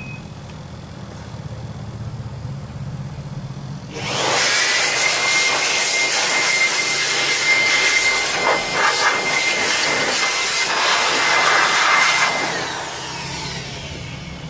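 Electric dust blower switched on about four seconds in, running with a rush of air and a steady high whine as it blows dust out of an opened laser printer's metal chassis, then winding down near the end.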